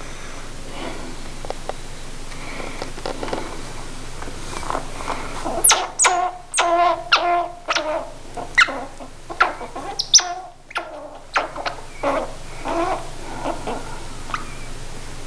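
Baby gray squirrel fussing: a string of short, high squeaky chirps in quick succession, starting about six seconds in and lasting about six seconds.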